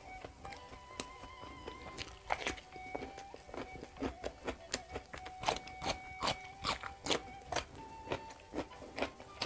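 Crisp, irregular crunching of raw vegetables being chewed close to the microphone, starting about two seconds in, over soft background music with long held notes.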